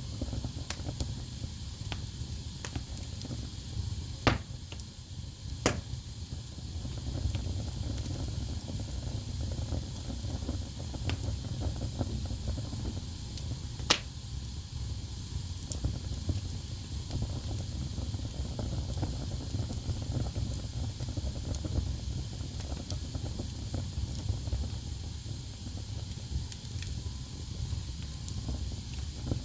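Wood fire burning in a fireplace: a steady low rumble of flames with frequent small crackles and a few sharper pops, the loudest about four, six and fourteen seconds in.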